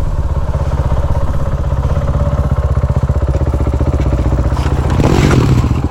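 KTM supermoto's single-cylinder engine running steadily at low revs with an even, rapid pulse, growing a little louder about five seconds in.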